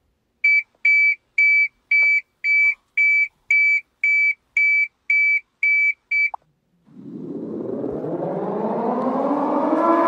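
Microwave oven beeping: a steady high beep about twice a second, twelve times, then stopping. About a second later a siren starts winding up, rising in pitch and growing louder.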